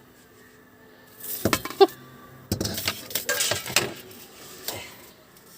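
Clatter of cookware and metal utensils being handled: a run of knocks and clinks with brief ringing, starting about a second in and dying away near the end.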